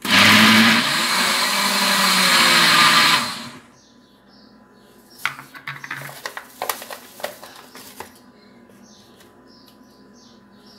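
Countertop blender running for about three and a half seconds, churning a thick cake batter as flour is added a little at a time, then switched off abruptly. A few seconds later a plastic bag is crinkled and rustled by hand.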